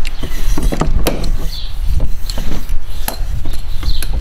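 Handling noise: scattered clicks, knocks and rubbing as a cable and plastic fitting are handled, over a steady low rumble.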